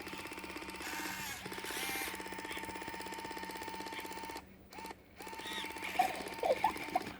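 Malfunctioning Luvabeau interactive baby doll's eye and head mechanism clicking rapidly and evenly over a faint steady motor whine, stopping briefly about four and a half seconds in and then starting again, with a few louder knocks near the end. The clicking is the mechanism failing to open the doll's eyes and never stopping.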